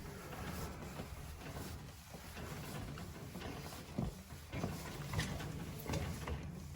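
New boiler expansion tank being tightened onto its threaded fitting: a few soft metal knocks and clicks over a faint low hum.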